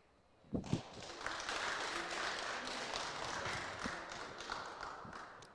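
Audience applauding, starting about half a second in with a few scattered claps, then steady, fading out near the end.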